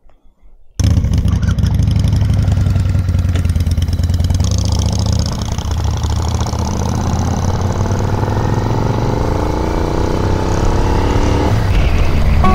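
Royal Enfield 650 parallel-twin motorcycle engine, heard from the rider's own bike, coming in abruptly about a second in and running under load as it pulls away. Its pitch climbs steadily through a gear over several seconds, then drops with a gear change near the end.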